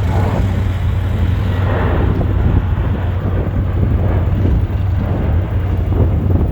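Steady low engine rumble with a rough hiss over it.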